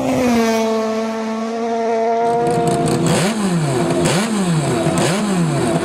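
Norton rotary racing motorcycle's Wankel engine: first a pass at speed, a smooth hum that drops in pitch as it goes by and then holds steady. About two seconds in it switches to the bike on a stand being revved in sharp blips about once a second.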